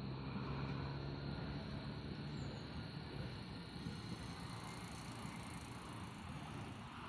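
Street background noise with a low engine hum from road traffic that fades out about two and a half seconds in.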